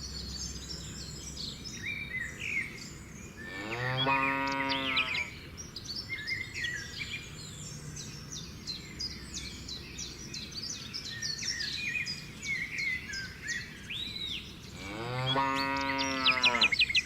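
Small birds chirping continually, with two long, low animal calls that rise and fall in pitch, one about four seconds in and one near the end.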